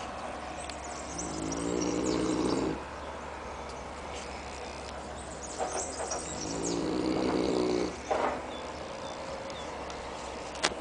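Neapolitan mastiff snoring hard in its sleep: two long buzzing snores about five seconds apart, each over a second long, with softer breathing between.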